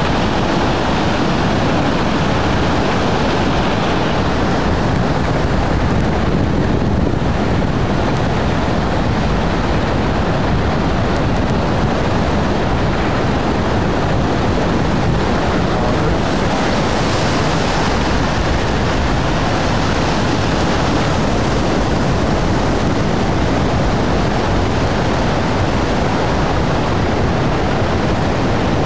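Tsunami floodwater rushing past in a fast, churning current: a loud, steady rushing noise.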